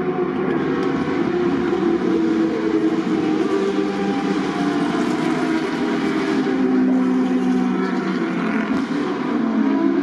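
A pack of Boss GP single-seater racing cars running together, many engines at once with several overlapping pitches that rise and fall as the field goes through the corner and away.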